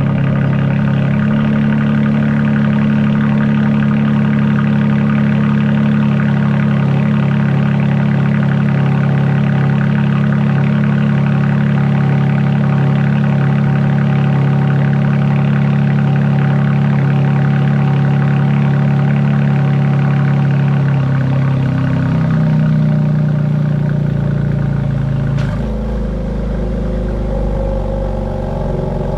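Can-Am Maverick X3's turbocharged three-cylinder Rotax engine idling just after start-up, a steady low drone. Its pitch steps down a little about 21 seconds in, and about 25 seconds in the sound changes suddenly and turns deeper, with more low rumble.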